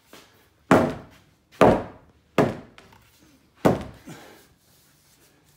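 Sledgehammer striking the underside of a wooden beam four times, about a second apart, each a heavy wooden thunk, driving the beam up into place so the roof rafters bear on it.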